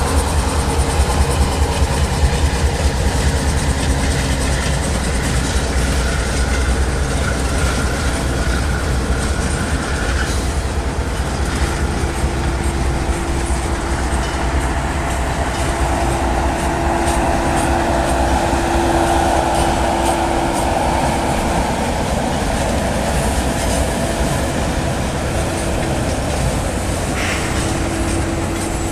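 Canadian Pacific Holiday Train's decorated boxcars rolling past: a steady heavy rumble with wheels clicking over rail joints. Faint steady wheel squeal comes in from about a third of the way through.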